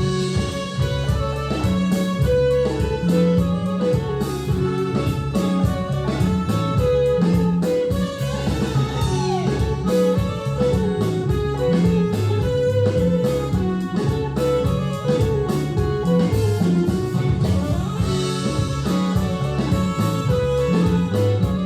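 Music with guitar, bass and drums played back through Monitor Audio Monitor 3 three-way floor-standing speakers, starting fresh after a brief pause.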